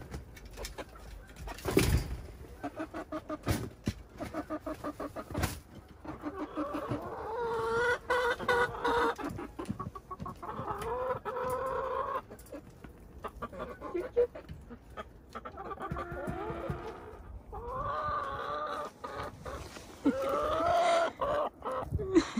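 Several hens clucking in quick runs, then giving longer, drawn-out calls. A few sharp knocks come through, the loudest about two seconds in.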